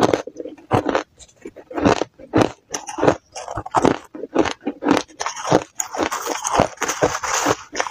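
Hard crushed ice being bitten and crunched between the teeth close to a clip-on microphone, sharp crunches about two a second. In the second half a metal spoon scrapes and scoops through the crushed ice in the bowl.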